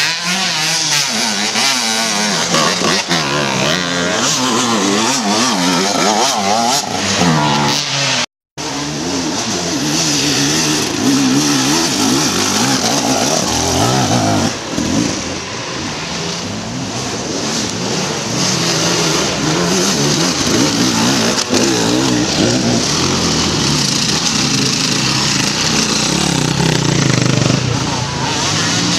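Enduro motorcycle engine revving hard and unevenly, its pitch rising and falling over and over as the throttle is worked. The sound cuts out completely for a moment about eight seconds in.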